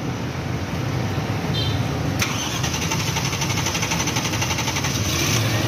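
Toyota Land Cruiser engine being cranked by its starter for about three seconds, beginning about two seconds in, with a fast even rhythm over a steady low hum.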